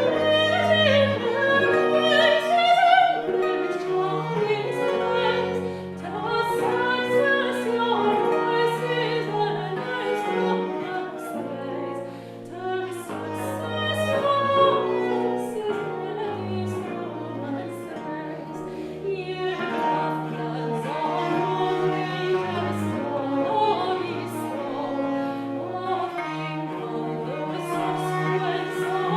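A woman singing a Scottish Jacobite air in classical style, accompanied by a Baroque ensemble of traverso, violin, viola da gamba, Celtic harp and theorbo, with held low bass notes under the tune. The music thins briefly about twelve seconds in.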